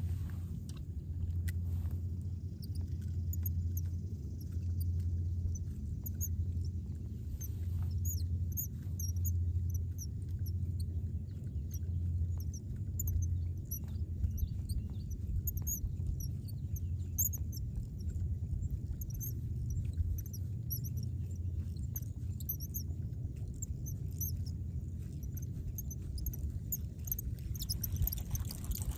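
Scattered high bird chirps over a low rumble that swells and fades every second or two.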